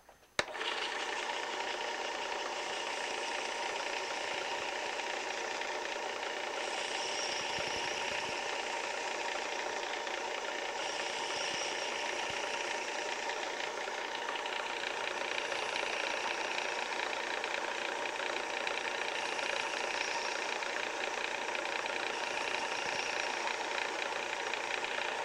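WorkSharp 3000 sharpener's motor starting about half a second in and running steadily with a constant whine, driving the superfine polishing belt of the belt-sharpening attachment. A hiss swells every few seconds as a knife blade is drawn across the belt. The motor cuts off suddenly near the end.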